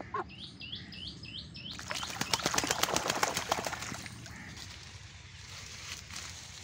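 A duck bathing in shallow water, beating its wings and splashing hard for about two seconds. Before that, a duckling peeps in a quick run of about six high notes.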